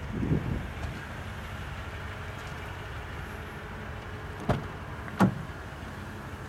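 Pickup truck engine running steadily, with a short low rumble just after the start and two sharp knocks about four and a half and five seconds in.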